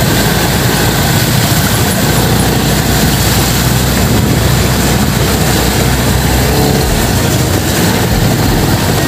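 Motorcycle tricycle's engine running steadily while driving through shallow floodwater, under a constant rushing noise.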